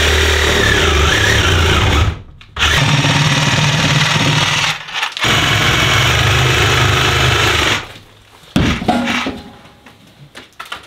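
Electric power saw cutting along a marked line. It runs steadily, breaks off for a moment about two seconds in and again midway, then stops for good near the end.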